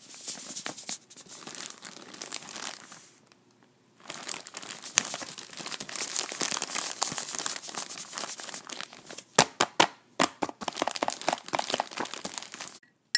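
Paper and plastic packaging crinkling and rustling, as for a cocoa packet being emptied and a plastic bag being opened. There is a short pause about three and a half seconds in, and sharper crackles come toward the end.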